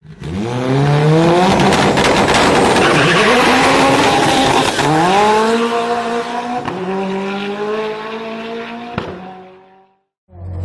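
A race car accelerating hard through the gears. The engine's pitch climbs, drops at gear changes about five and six and a half seconds in, and climbs again. There is a sharp crack just before the sound fades out near the end.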